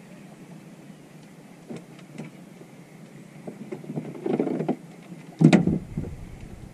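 Handling noises in a small boat: a couple of light knocks, then a stretch of rustling and clatter, and a loud thump about five and a half seconds in.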